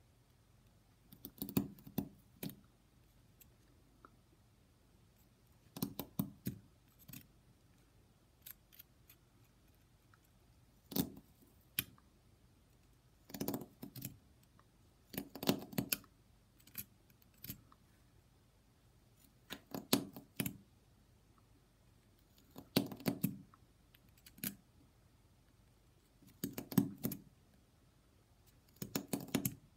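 Stanley knife blade scraping and picking at the plastic edge of a Dallas SmartWatch DS1216 module, in short scratchy bursts every two to three seconds.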